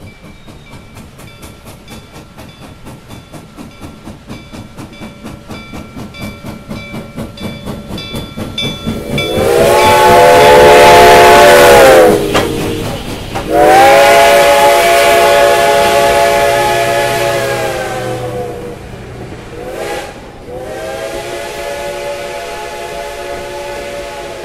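A steam locomotive approaches working steadily, its exhaust beats growing louder. It then sounds its chime whistle in two long blasts, a short one and a long one, the road-crossing signal, with the whistle's pitch dropping as it passes. Near the end the passenger coaches roll by behind it.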